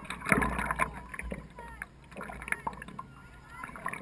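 Water splashing and lapping against a stand-up paddleboard as it is paddled, with irregular paddle-stroke splashes, busiest about half a second in.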